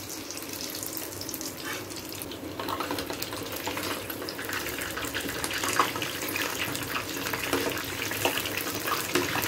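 Onion bondas deep-frying in hot oil in a steel kadai: a steady sizzle with crackling, growing louder about two and a half seconds in.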